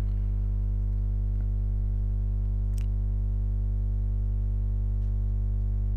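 Steady low electrical hum with a stack of buzzing overtones, unchanging throughout, typical of mains hum picked up in the recording chain. One faint click comes about three seconds in.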